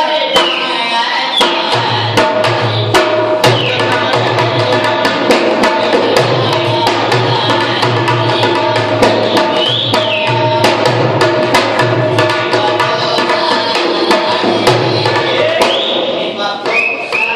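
Live Rajasthani puppet-show music: an Indian hand drum played in a fast, steady rhythm over a low droning tone, with a few high squeaky glides of the puppeteer's reed whistle.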